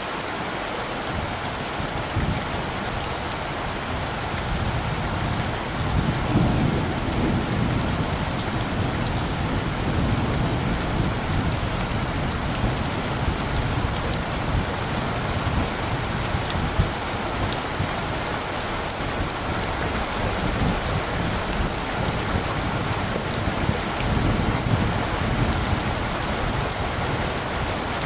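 Steady rain falling, with low rolls of light thunder, one swelling about six seconds in and another near the end.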